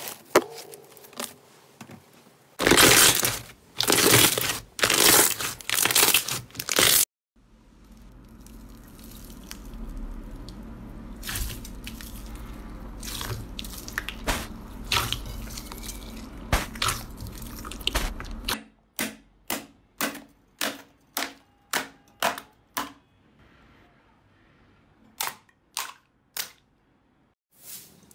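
Slime being squeezed and kneaded by hand in several short takes: loud crackling bursts, then squelching clicks over a low steady hum while clear slime full of beads is worked in a bowl, then a run of short pops about two a second.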